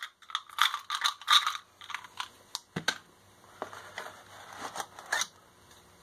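Small metal tools clinking and rattling in the hands: loose driver bits and a universal joint, then sockets on a rail. The rattling is busiest in the first second or so, followed by a few separate sharp clicks.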